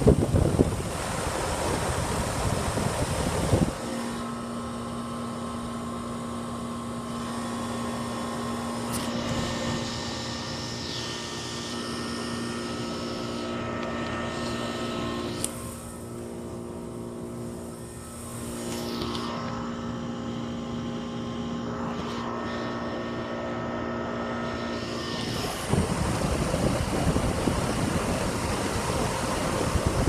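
Goodman heat pump outdoor unit running, a steady mechanical hum made of several held tones. Wind buffets the microphone for the first few seconds and again near the end.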